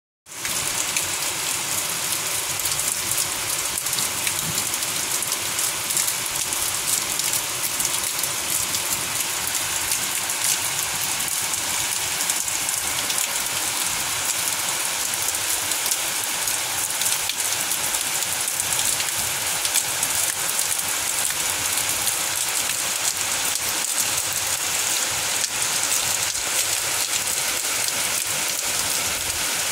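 Heavy, steady rain falling on a lawn, garden plants and a wet patio, a dense hiss with the patter of individual drops close by.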